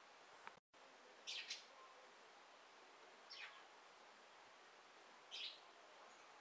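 Small songbird's short, faint chirping calls: a quick double chirp, then two single chirps about two seconds apart, over a steady faint hiss.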